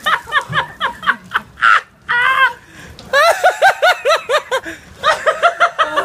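Hearty laughter in quick repeated bursts, about four or five a second, broken by short pauses.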